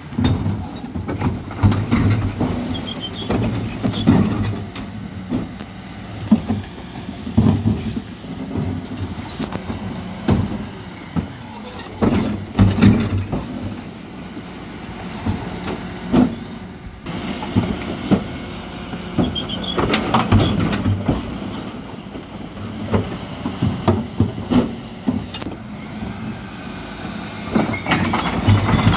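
Mercedes Econic bin lorry with a Terberg Olympus rear-loader body, its engine running steadily while the hydraulic bin lifts raise and tip blue recycling wheelie bins. Bins knock against the lift and the load clatters into the hopper every few seconds.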